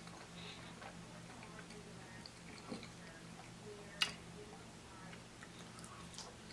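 Faint eating sounds from a person picking up and chewing soft, cheese-topped fries: small wet mouth clicks and lip smacks, with one sharp click about four seconds in. A low, steady hum sits underneath.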